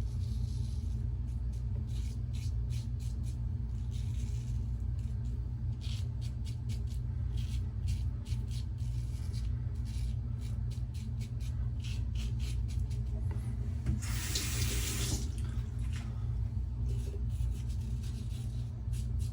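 Double-edge safety razor with a lather-catcher plate scraping stubble off the cheeks in short, scratchy strokes. A water tap runs for about a second and a half around fourteen seconds in. A steady low hum sits beneath.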